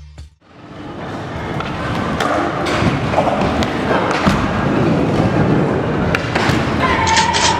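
Indoor skatepark sounds fading in: skateboards knocking and thudding on ramps and ledges over a steady rolling din with faint voices, in a large hall. A few steady musical tones begin near the end.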